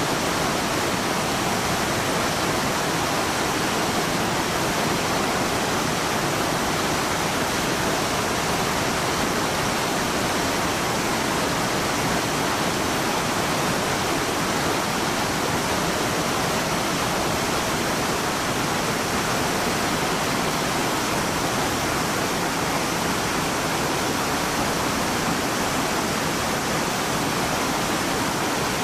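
Whitewater of a steep creek rapid pouring down a slide between boulders: a steady, loud rush of water.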